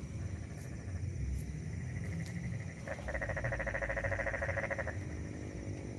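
A frog calling with a rapid pulsed trill that starts about three seconds in and lasts about two seconds, over a low steady rumble.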